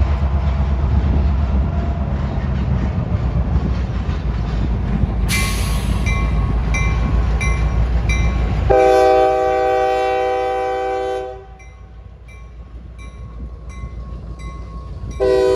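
Norfolk Southern diesel freight locomotive passing, with a deep engine and wheel rumble for the first half. A bell rings steadily, about one and a half strikes a second, from about five seconds in. The air horn sounds one chord for about two and a half seconds just past the middle, and a second horn blast starts near the end.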